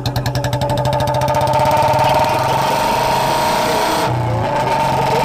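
An engine running, its quick, even firing beat speeding up and smoothing out over the first couple of seconds, then holding steady.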